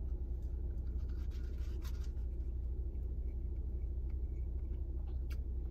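Steady low hum inside a parked car's cabin, with a few faint clicks and rustles as a man chews a breakfast sandwich held in its paper wrapper.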